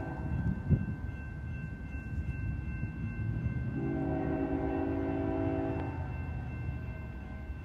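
BNSF locomotive air horn sounding one long blast of several notes at once, lasting about two seconds, starting a little before the middle, as the train nears a grade crossing. Underneath are the low rumble of the approaching train and a steady high ringing from the crossing signals.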